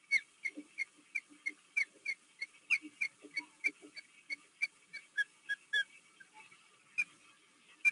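Ospreys calling while mating: a rapid series of short, high whistled chirps, about three a second, dropping a little in pitch and stopping about six seconds in, followed by two lone chirps.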